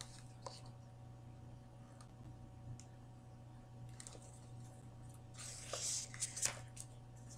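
Faint paper rustle of a picture book's page being turned, a little over five seconds in, over quiet room tone with a low steady hum and a few faint clicks.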